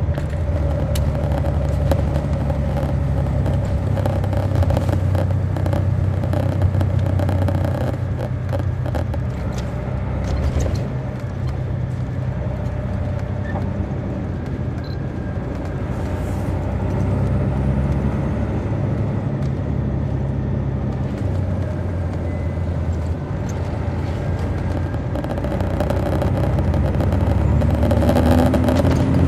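A 2003 MCI D4500 coach's Detroit Diesel Series 60 engine running steadily under way with a low drone, softening a little in the middle and building again near the end.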